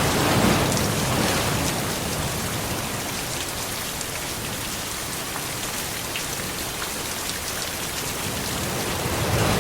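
Steady rain falling, with a low rumble of thunder dying away in the first second or so.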